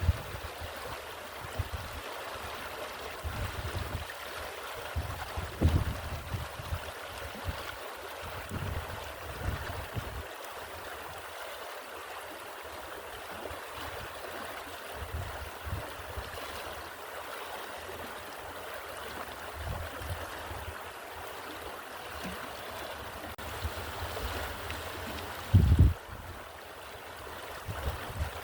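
Stream water flowing steadily, with wind gusting on the microphone in irregular low rumbles and one strong low thump near the end.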